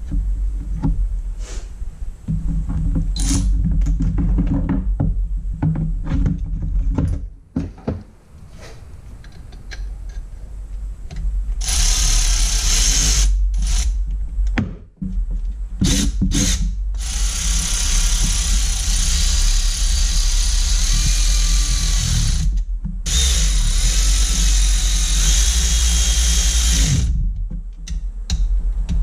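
Cordless drill/driver running in the engine bay of a Sea-Doo, first in a few short bursts about twelve seconds in, then in two long runs of several seconds each. Before that comes a quieter, lower-pitched stretch.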